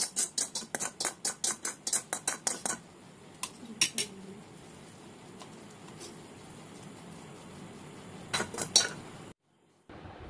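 Steel spoon clinking and scraping against a stainless-steel plate while spreading out a cooked vegetable mixture: quick clinks about five a second for the first three seconds, then a few scattered clinks.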